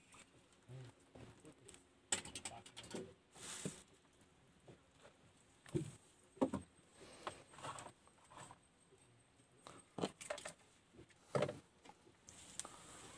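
Faint, scattered clinks and knocks of fishing tackle being handled: a handline with its hooks and sinker worked by hand over the side of a wooden boat.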